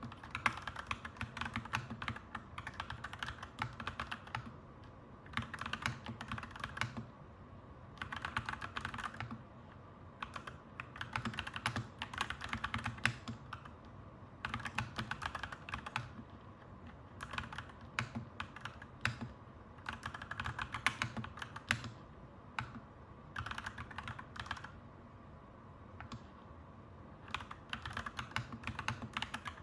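Clacky mechanical keyboard being typed on in bursts of fast keystrokes, with short pauses between bursts.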